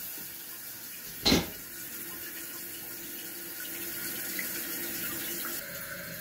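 Newly installed Kohler silent fill valve refilling the toilet tank after the supply is turned back on: a steady hiss of running water, with one sharp knock about a second in.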